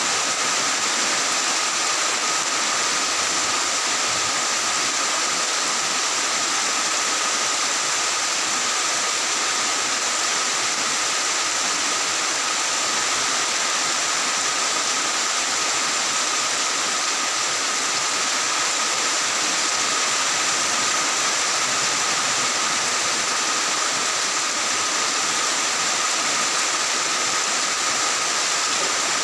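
Heavy rain falling steadily, an even hiss of drops on roofs and ground that neither builds nor eases.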